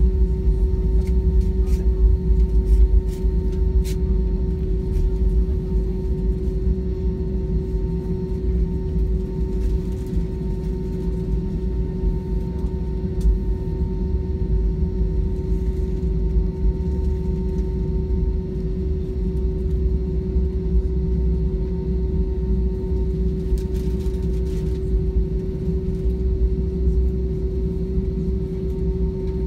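Cabin noise of an Airbus A320 taxiing on the ground: a steady low rumble from the engines and the wheels rolling over the concrete, with a constant engine hum.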